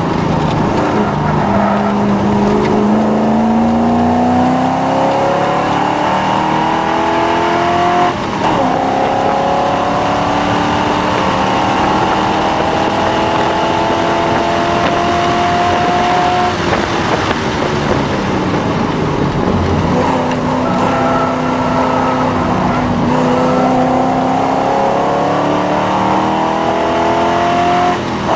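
Triumph TR7 V8's engine heard from inside the cabin under hard acceleration, its pitch climbing through the gears with a brief break for an upshift about eight seconds in. Past halfway it comes off the throttle and the pitch falls. It runs lower for a few seconds, then climbs again to another shift near the end.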